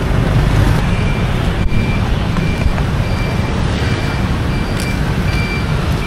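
Street traffic with a steady low rumble. A short high electronic beep repeats about every two-thirds of a second.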